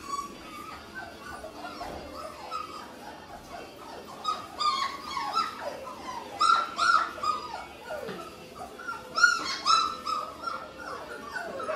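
Four-week-old Labrador retriever puppies whining and yipping: many short, overlapping high squeals, with louder clusters of yelps from about four seconds in.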